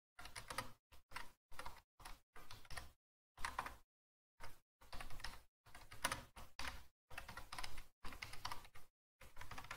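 Typing on a computer keyboard in short bursts of quick keystrokes, with brief silent pauses between the bursts.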